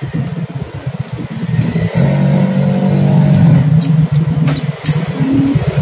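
A vehicle engine running, louder from about two seconds in, with a few sharp clicks in the second half.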